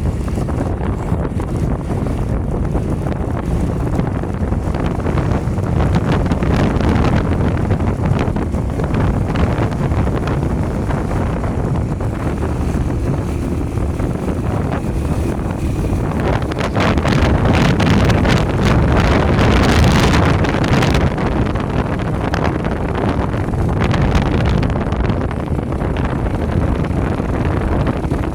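Wind buffeting the microphone as a continuous low rumble, growing louder for a few seconds past the middle.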